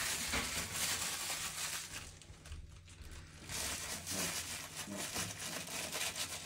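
Crumpling of a white wad as gloved hands stuff it into an open toilet drain pipe to block sewer fumes. It comes in two stretches with a short lull about two seconds in.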